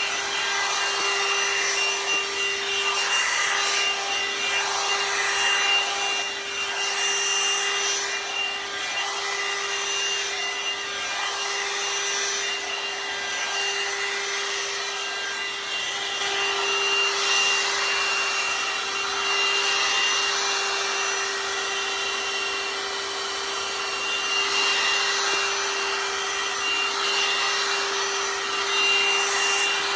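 One-step hot-air dryer and styler brush running: a steady motor whine over a rushing airflow hiss, the hiss rising and falling.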